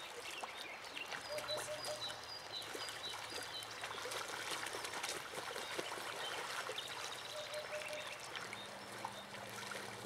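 Gently flowing river trickling, with small splashes from geese bathing in the shallows and a few faint bird calls.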